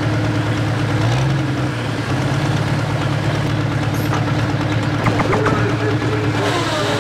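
Light pro stock John Deere 4840 pulling tractor's 466-cubic-inch turbo diesel idling steadily after a pull, with a brief blip of throttle about a second in. A voice comes in near the end.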